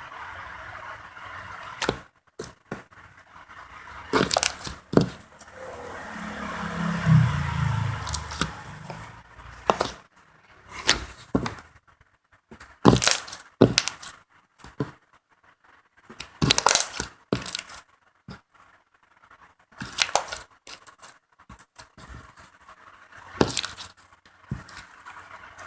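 Slime being stretched and squeezed by hand, giving irregular crackling and tearing sounds in short bursts. A low hum comes in for a few seconds about six seconds in.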